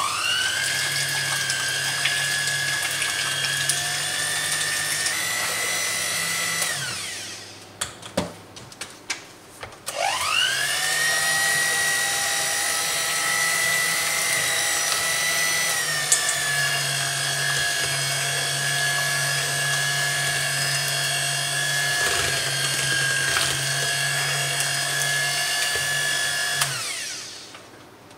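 Electric kitchen mixer beating butter for icing: the motor whines up to speed, runs steadily for about seven seconds and stops, then after a few clicks starts again and runs steadily until near the end.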